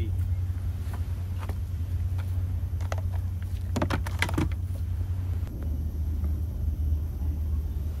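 Steady low hum of air-conditioning outdoor units running, with a few sharp clicks and knocks of handling between about one and four and a half seconds in. The hum changes character a little past halfway through.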